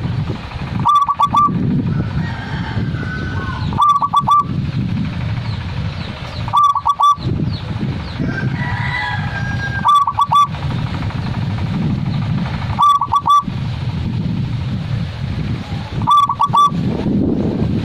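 Zebra dove (perkutut) singing its cooing song: a quick run of three or four notes, repeated about every three seconds, six times. A steady low rumble runs underneath, and fainter higher calls come between some of the phrases.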